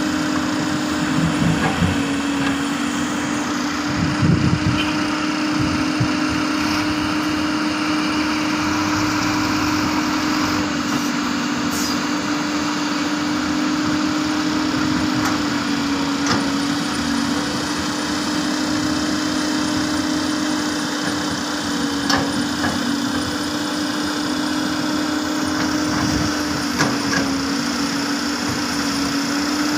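Heavy diesel engine of a Hyundai R330LC-9S excavator running steadily with a constant hum, with a few brief knocks spread through the stretch.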